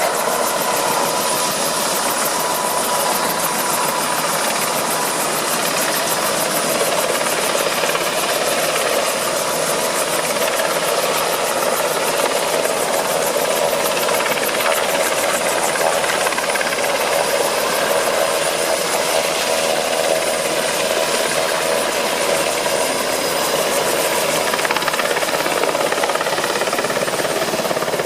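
Helicopter running close by: a loud, steady mix of engine and rotor noise with steady whining tones through it.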